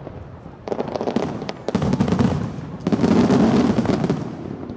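Fireworks display: shells bursting with booms and sharp crackling pops, then a louder surge of booms about three seconds in that rolls on and fades slowly.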